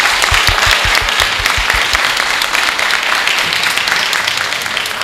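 A crowd of guests applauding, with low thumps in the first two seconds; the applause slowly eases off toward the end.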